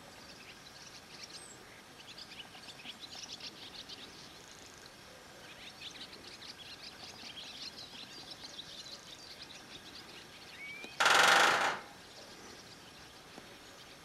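Great spotted woodpecker drumming on a metal roof: one very fast roll, under a second long and loud, near the end. This is its territorial drum, used instead of song. Small birds chirp through the rest.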